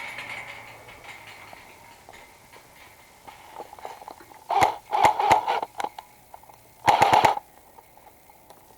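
Airsoft gun firing short rapid bursts of sharp clicks, one cluster about halfway through and a second brief burst near the end.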